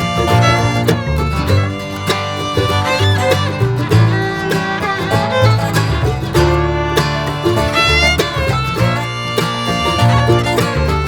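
Background music: upbeat bluegrass-style instrumental with fiddle and guitar over a steady bass line.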